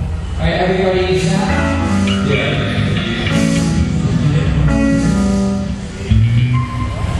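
Live band playing a song through the PA during a sound check, with guitar, bass and a singing voice.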